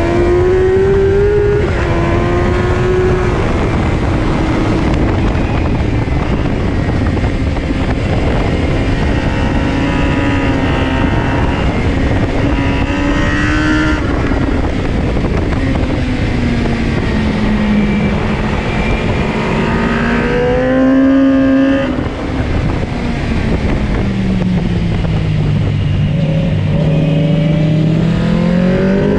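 Sportbike engine under hard track riding, heard from on board with heavy wind rush; its note climbs and steps between gears, falls sharply about two-thirds of the way in, sinks low under braking into a corner and rises again near the end as it pulls out.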